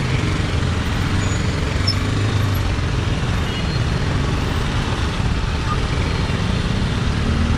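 BMW G310R's single-cylinder engine running steadily at low speed, mixed with the noise of slow surrounding road traffic.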